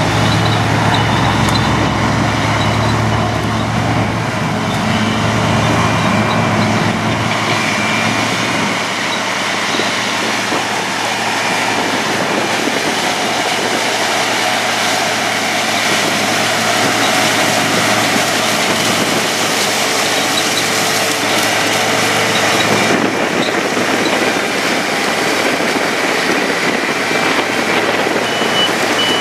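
Heavy sugarcane harvesting machinery running, a loud steady mechanical drone over a low engine hum, with a few short high beeps near the end.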